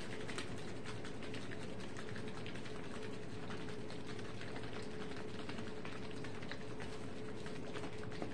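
Plastic tie-dye bottle being handled in gloved hands while its purple dye is mixed with water: quick irregular clicks and taps, over a steady hum.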